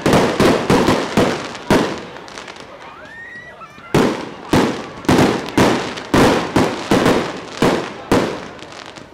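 Aerial fireworks bursting overhead with sharp bangs. A quick cluster comes in the first two seconds, then a lull, then a steady string of bangs at about three a second from about four seconds in.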